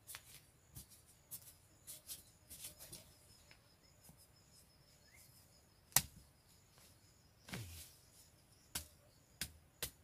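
Digging by hand in loose soil to get at a wild tuber: scattered scrapes, crumbles and knocks. The sharpest knock comes about six seconds in, followed shortly by a brief scraping rush.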